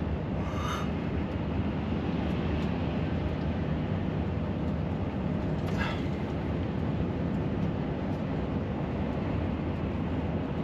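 Steady engine and road noise inside the cab of a moving semi-truck, with two brief higher-pitched sounds, one under a second in and one about six seconds in.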